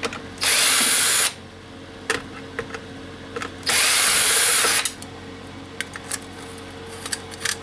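Power drill spinning out the screws from a coffee maker's bottom panel in two steady bursts of about a second each, with small clicks and knocks of handling between them.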